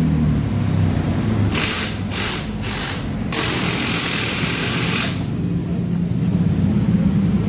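Yamaha Jupiter MX's single-cylinder four-stroke engine running at idle. About a second and a half in come three short bursts of hiss, then one longer hiss of nearly two seconds.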